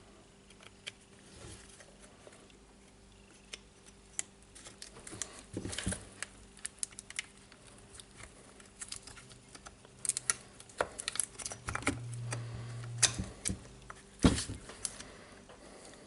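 Irregular small clicks, taps and rattles of plastic and metal parts being handled and fitted by hand while reassembling a cordless rotary hammer, busier over the last few seconds, over a faint steady hum.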